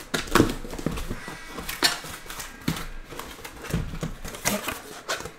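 Cardboard being handled: a taped shipping carton opened and a shrink-wrapped box of trading cards lifted out and set down, with irregular knocks, scrapes and rustles.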